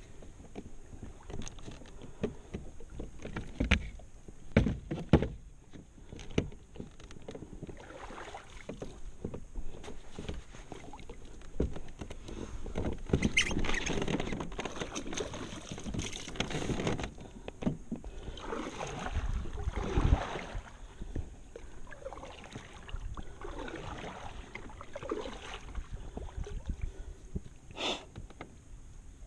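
Knocks and bumps from a plastic sit-on-top kayak being handled and boarded at the water's edge, then water swishing around the hull and paddle in repeated swells as the kayak moves out on the lake.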